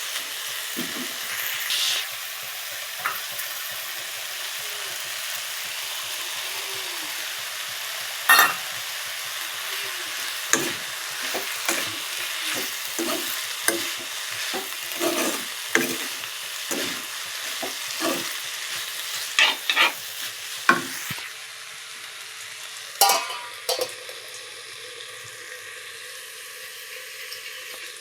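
Spiny gourd (kakrol) sizzling as it fries in oil, stirred with a spatula that scrapes and taps against the pan again and again. About two-thirds of the way through there is a louder clatter, and the sizzle is quieter near the end.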